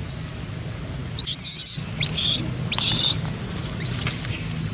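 A monkey screaming: three loud, high-pitched shrieks in quick succession, each under a second long, over a steady low hum.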